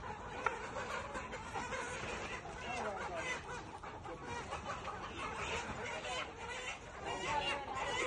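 A flock of brown hens clucking all through, with a sharp click about half a second in.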